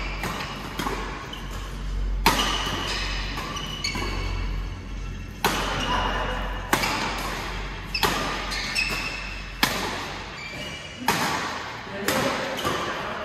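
Badminton rally: rackets striking a shuttlecock about every one to one and a half seconds, each hit ringing on in a large metal-walled hall. Short shoe squeaks on the court come between the hits.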